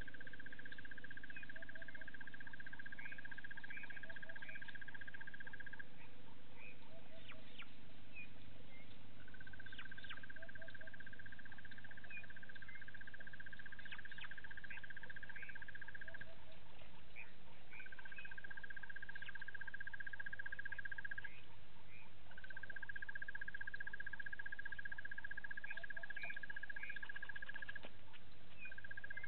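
Wildlife chorus: a high, even trill repeats in long spells of several seconds with short breaks, over scattered short bird chirps and low paired calls.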